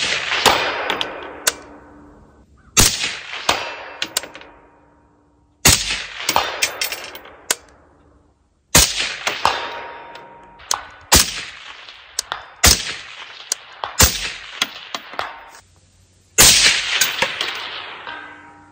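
Springfield Hellion 5.56 mm bullpup rifle firing seven single aimed shots, spaced about one and a half to three seconds apart. Each crack trails into a long echoing decay, with fainter sharp cracks between the shots.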